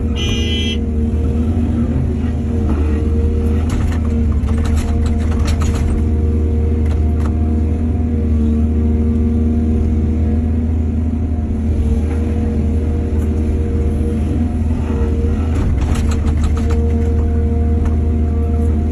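Heavy diesel engine of an excavator running steadily under load while it loads soil, with bursts of clatter and scraping a few seconds in and again near the end. A brief high tone sounds at the very start.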